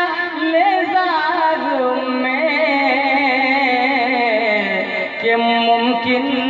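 A naat reciter's voice singing a long, drawn-out melismatic line with a wavering pitch; the melody slowly sinks over several seconds.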